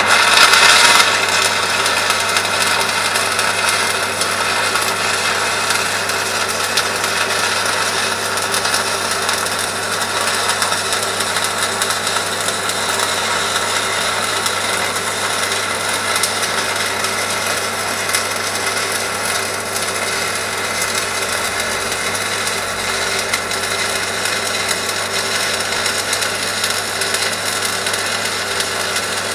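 Stick-welding arc burning steadily on a rod electrode, with a louder burst in the first second as the arc is struck.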